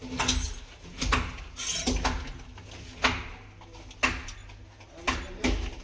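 Sharp knocks and clatter roughly once a second as a CPVC pipe and its fittings are handled and pressed into a chase in a brick wall.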